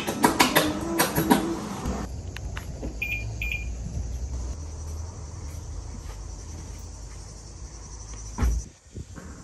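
Outdoor ambience with a steady high chirring of crickets over a low rumble, after a few sharp taps and voice sounds at the start. About eight and a half seconds in comes one heavy thump: a car's boot lid being shut.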